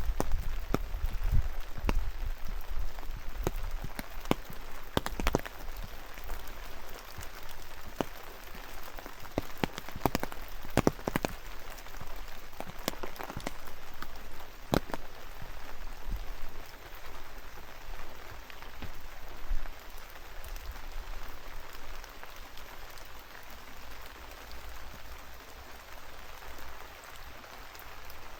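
Steady rain falling, with individual drops landing close by as sharp, irregular taps, more of them in the first half.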